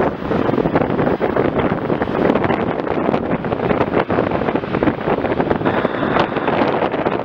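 Wind buffeting the microphone: a steady rushing noise with constant crackly gusts.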